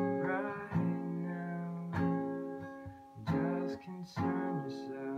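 Guitar strumming chords: five strums about a second apart, each left to ring and fade before the next.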